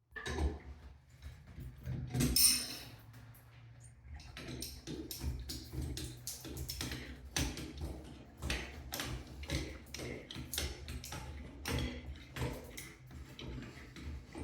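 Hands working a shower head and its fittings on the shower arm: a louder scrape about two seconds in, then a run of small clicks and taps, a few each second, over a low steady hum.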